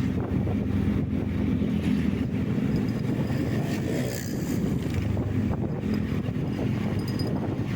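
A vehicle on the move: a steady low engine and road rumble, with wind buffeting the microphone.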